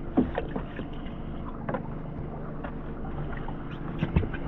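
Steady low mechanical hum aboard a small outboard skiff, with a few sharp knocks and clicks from gear being handled on the fibreglass deck, the loudest knock near the end.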